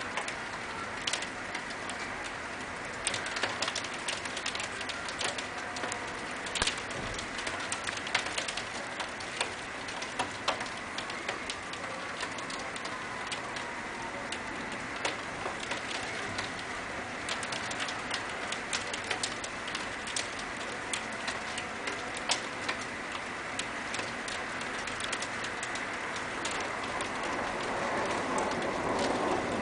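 Steady rain during a thunderstorm, with frequent sharp drips ticking on a hard surface. Over the last few seconds a low rumble of thunder builds and the sound grows louder.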